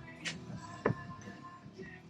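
Background music, with a short sharp click about a second in.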